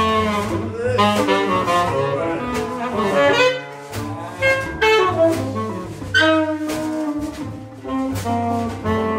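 A small band playing an upbeat jazz tune: a saxophone carries the melody over double bass and drums, with steady drum and cymbal hits.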